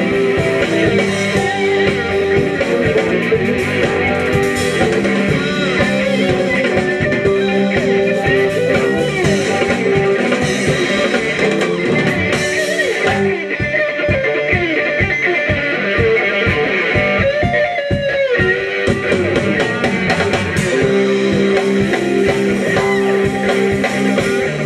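Live electric blues band playing: electric guitars with bending, wavering lead lines over bass guitar and drum kit, loud and continuous.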